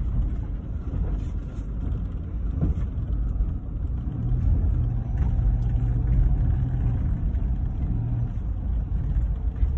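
Car engine and road rumble heard from inside the cabin as the car moves slowly, a low steady hum.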